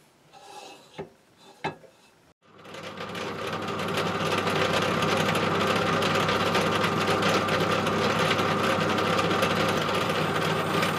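A few faint clicks, then a bench drill press starts up about two and a half seconds in and runs steadily, drilling a hole in a brass disc.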